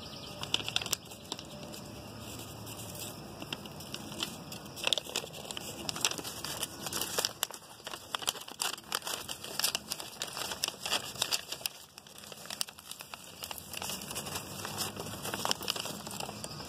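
Sheet of paper rustling and crinkling as it is handled, with dense, irregular crackles throughout.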